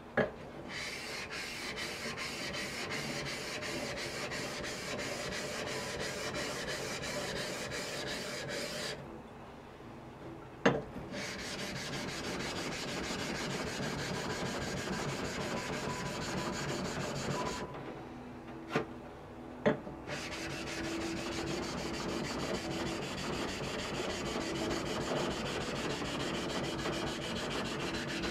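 Steel on a wet 1000-grit Japanese waterstone: a kanna plane blade is ground back and forth across the stone on its main bevel, taking off the old double bevel. The rubbing comes in three long runs of steady strokes, broken by two short pauses with a few sharp clicks as the blade or a block is set down.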